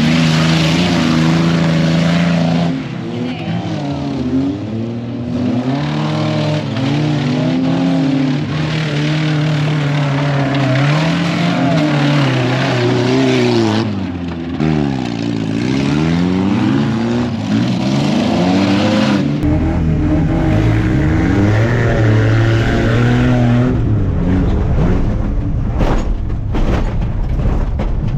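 Off-road race trucks' engines revving hard and backing off again and again, the pitch rising and falling many times. About two-thirds of the way through the sound changes abruptly to a lower, steadier engine drone over a heavy low rumble.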